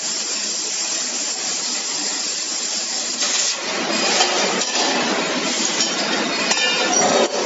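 Laser tube-cutting machine cutting a metal tube: a steady hiss from the cutting head with the machine running, louder and rougher from about three seconds in. A few clinks sound near the end as cut-off pieces drop onto the metal table.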